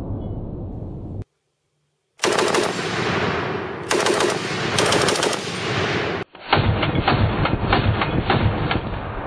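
Breda Model 30 light machine gun firing long bursts of automatic fire. The fire breaks off about a second in and resumes after about a second's pause.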